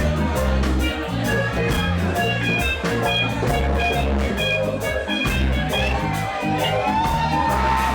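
Live reggae band playing with no vocals: a deep bass line and a steady drum beat, with guitar parts above them.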